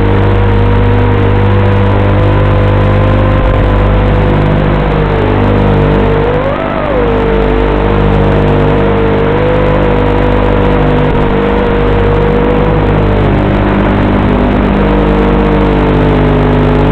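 Racing quadcopter's electric motors whining in flight, a steady tone that rises briefly in pitch about seven seconds in and dips away for a moment around thirteen seconds.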